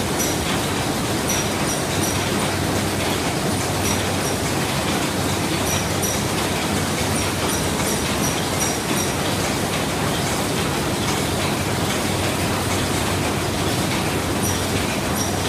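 Ham sausage machine running: a steady loud mechanical din with a low hum, and short high metallic ticks that come in quick clusters every second or few.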